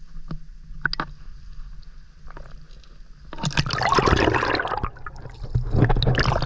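Bare feet wading and splashing through a river, quieter at first with a few small knocks, then loud splashing from about three seconds in, easing briefly and picking up again near the end.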